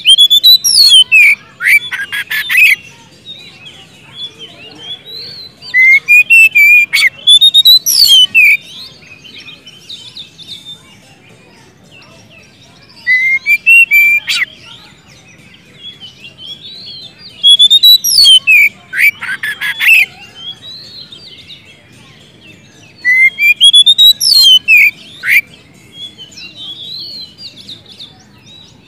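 Oriental magpie-robin (kacer) in full, loud song. It gives five bouts of rising and falling whistled notes, each ending in a harsh rattling run, with softer twittering in between.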